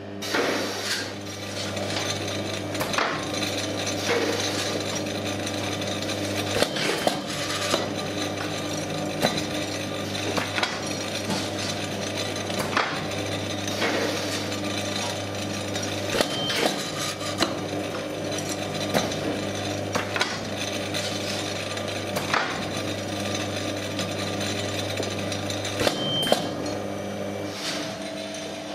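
Fiberglass-mesh taping machine for corner profiles with an automatic profile feeder, running: a steady motor hum with irregular mechanical clicks and knocks every second or few. A short high tone sounds twice, about halfway through and near the end.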